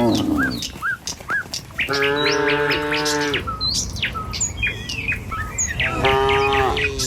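Small birds chirping over and over while a cow moos twice: one long, even call about two seconds in and a shorter one near the end.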